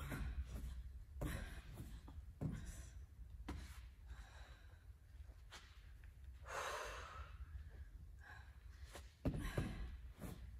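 Hard, gasping breathing of an athlete worn out mid-workout, short breaths about once a second with one longer exhale about six and a half seconds in. A louder thump near the end as she kicks back up into a handstand against the wall.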